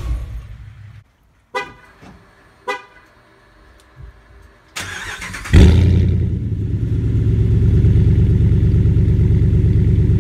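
Pickup truck idling, cut off about a second in. Two short horn chirps follow, then the starter cranks and the 2017 Ram Power Wagon's 6.4-litre HEMI V8 fires through an aFe aftermarket exhaust with a loud flare, settling into a steady idle.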